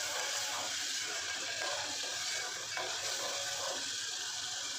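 Onion-garlic-chilli masala paste sizzling steadily in hot oil in an aluminium pot on full flame, while a steel spoon stirs and scrapes it round the pot. This is the bhuna stage, frying the masala until the oil separates.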